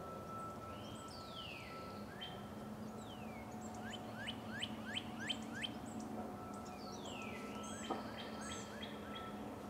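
Songbirds singing: several clear downward-sliding whistles and a quick run of short descending chirps, over a faint steady hum. There is one sharp click near the end.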